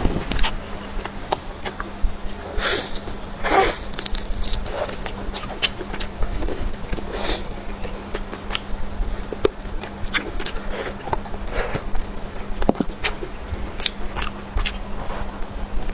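Close-miked eating sounds: irregular chewing and mouth smacks with many short clicks and a few longer slurp-like rushes, over a steady low hum.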